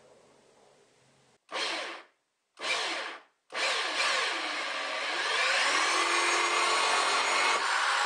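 Cordless drill cutting a 1.5-inch hole through the plastic wall of a wastebasket: two short bursts of the drill, then a continuous cut from about halfway in, its whine wavering up and down as it bites.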